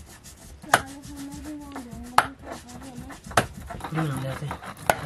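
Knife chopping on a cutting board: four sharp strikes, spaced a little over a second apart.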